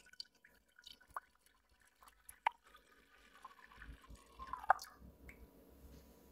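Milk poured into a stainless steel bowl: quiet liquid splashing and dripping, with a few sharp drips, the loudest near the end of the pour.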